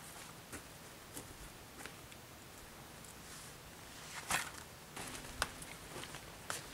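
Light footsteps and scattered rustling in dry forest litter as a backpack is carried and handled. There is a louder rustle about four seconds in and a sharp click about a second later.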